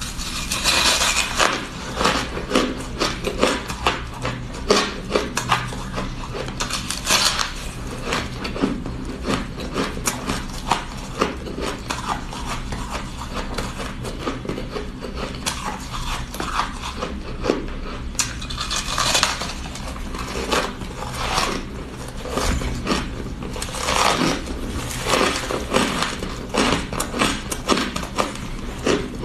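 Crunching of soft, snow-textured ice being bitten and chewed: a dense run of crisp crackles, with several louder bites that come and go.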